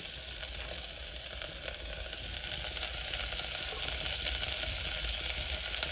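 Freshly added chopped onions sizzling in hot mustard oil in a pressure cooker, an even frying hiss that builds slowly, with one light click near the end.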